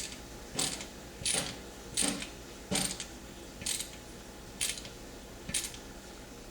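A screwdriver turning a steel barrel band screw on a Marlin 336 rifle to tighten it: a short, sharp scraping click with each turn, about one every 0.7 s, coming a little slower toward the end as the screw gets snug.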